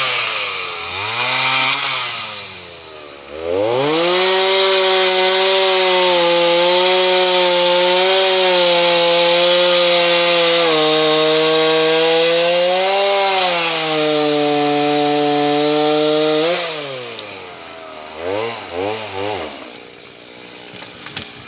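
Gas chainsaw revved twice, then held at full throttle for about thirteen seconds, its pitch sagging slightly as it bites into a fallen tree. It then drops back, with a few short throttle blips before settling to idle near the end.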